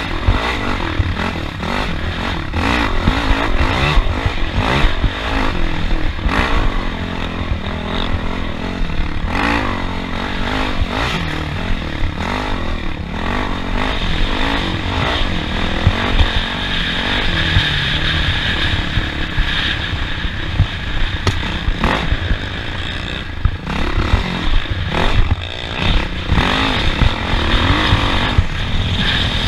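Off-road race vehicle driving the dirt track: the engine rises and falls in revs, with clattering and scraping as it runs over rough ground.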